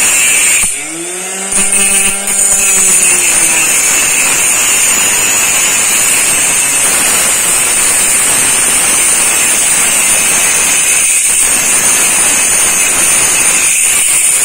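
Homemade angle grinder built on a 12-volt DC 775 motor, its disc grinding a piece of steel: a steady gritty grinding noise over a constant high whine. The motor drops out briefly under a second in, then spins back up with a wavering pitch before settling into the steady grind.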